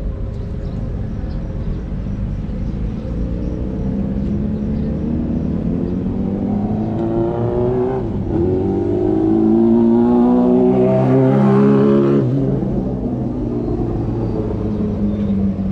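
A motor vehicle's engine accelerating over a low traffic rumble, its pitch rising. The pitch dips once about eight seconds in, like a gear change, then climbs again and is loudest before it breaks off suddenly about twelve seconds in.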